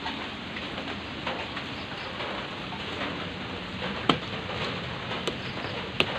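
Steady rain hiss, with three short sharp clicks in the second half.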